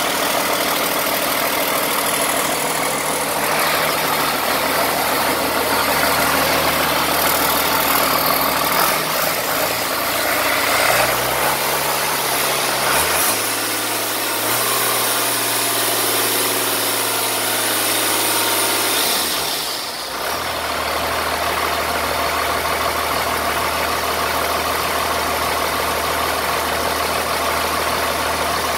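Rebuilt six-cylinder diesel engine running on a run-in stand, at a steady idle for most of the time. Its speed rises in steps a little past 11 s, holds there, and is back at idle from about 20 s.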